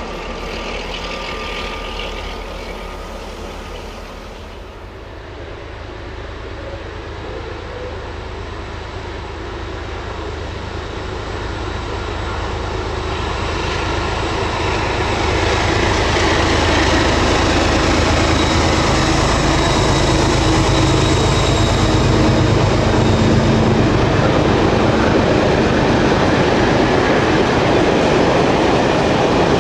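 A diesel-hauled freight train drawing near, growing louder over about ten seconds, then running past with a long string of hopper wagons rolling over the rails.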